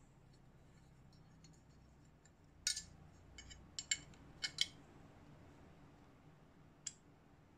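Sharp metallic clicks and clinks from the metal frame parts of a Wingun 708 CO2 revolver as they are handled and fitted together: a quick run of them between about two and a half and five seconds in, and one more near the end.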